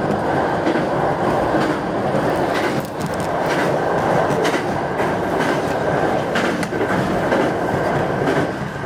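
Train running over a steel truss bridge, heard inside the front car: a loud, steady rumble with wheel clicks over rail joints. The rumble eases a little near the end as the train comes off the bridge onto plain track.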